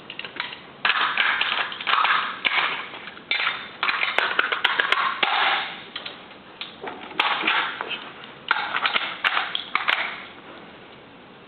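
Machine gun, plausibly an M240B, being stripped at speed: metal parts click, rattle and scrape in quick clusters as pins, the bolt and other components are pulled out and set down, easing off near the end.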